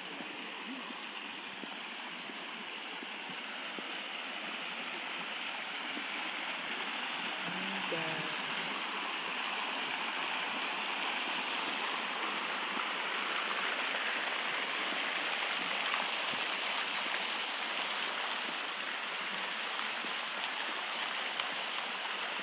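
Fountain jets splashing into a basin: a steady rush of falling water that grows gradually louder through the middle and eases slightly near the end.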